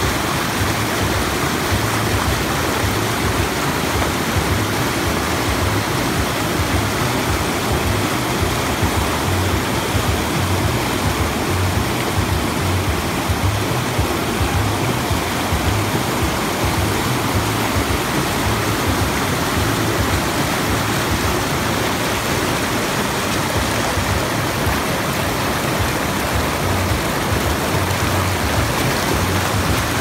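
River water rushing and splashing over rocks in small rapids and cascades, a steady, even rush with no let-up.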